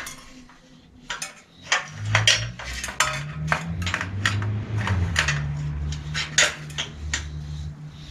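Metal parts clicking and clinking at a bicycle's rear axle as the rear wheel with its Nexus hub is fitted back into the frame with its chain tensioners. A low hum that shifts in pitch runs underneath from about two seconds in.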